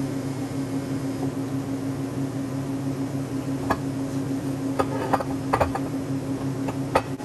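Steady machine hum, with a handful of short sharp clicks in the second half.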